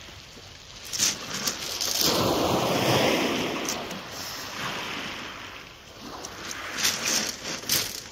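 Sea wave washing on the beach, swelling about two seconds in and fading away over the next few seconds. A few sharp clicks come near the end.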